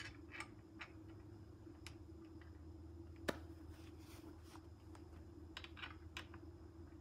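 Scattered light clicks and taps of a bike rack's mounting clamps being positioned on a car roof crossbar, with one sharper click about three seconds in, over a faint steady hum.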